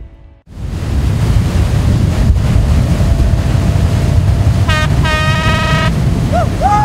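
Boat running on the water, with a steady low rumble and wind and water noise on the microphone. A horn toots briefly about five seconds in.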